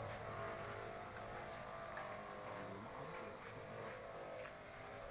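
A faint, steady low hum, with a few light clicks.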